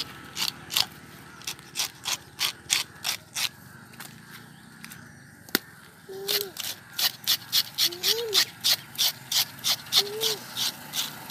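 Fish scaler scraping the scales off a whole fish on a stone block: quick rasping strokes at about three a second, which pause near the middle and then pick up again.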